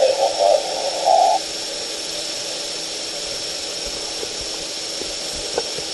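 Steady background hiss with a faint, constant high whine. For about the first second and a half a louder, muffled, tinny sound sits over it, then only the hiss is left.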